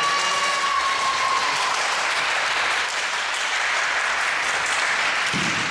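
Players clapping and cheering in a sports hall, with one voice holding a call at the start. A dull thump comes near the end.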